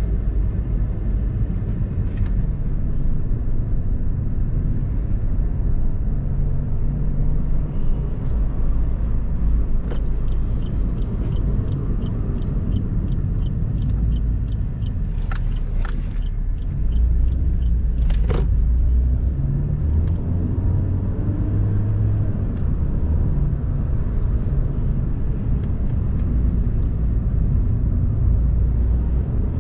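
Cabin sound of a Suzuki Ignis's 1.2-litre four-cylinder petrol engine and tyres while driving: a steady low engine and road rumble. About a third of the way in comes a run of light ticks, roughly three a second, followed by a few sharp clicks.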